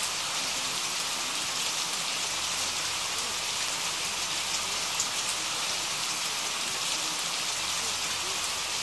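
Rain falling on a surface: a steady, even hiss with a single sharper drop tick about five seconds in.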